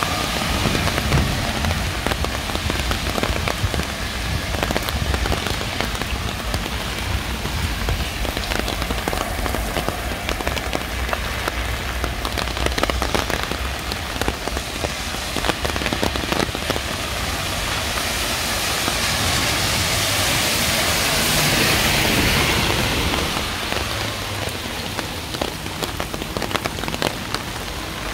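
Steady rain falling, with many small sharp drop hits close by. About two-thirds of the way through, a hiss swells up and fades away over a few seconds.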